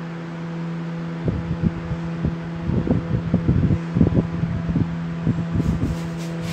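Steady mechanical hum with a few fixed tones, overlaid by irregular low thumps and rumbles of handling noise from a handheld microphone.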